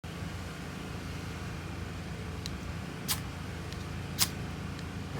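Steady low engine rumble from a nearby truck, with two short sharp scraping clicks about three and four seconds in, the second the louder.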